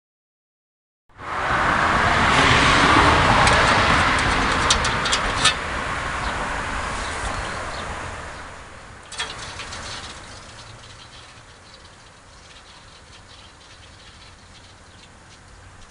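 Wilesco D20 toy steam engine hissing steam, with a few sharp clicks. The hiss starts after a second of silence and dies away over several seconds to a low steady hiss.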